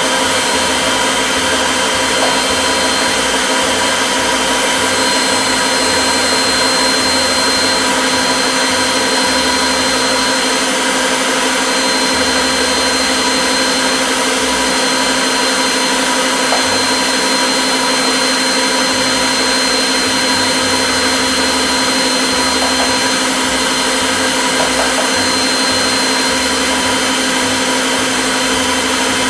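Electric stand mixer beating cake batter, its motor running with a steady whine.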